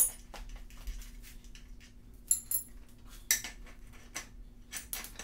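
A wrench and other metal hand tools clinking and tapping on the front wheel's axle hardware as the wheel is taken off. A sharp ringing clink comes at the start, then scattered clicks and short metallic rings about two and three seconds in.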